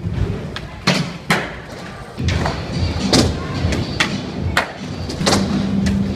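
Skateboard wheels rolling on a hard park floor, with several sharp clacks and slaps as the board is popped and landed on tricks. A steadier scraping grind runs through the last second as the board slides along a ledge.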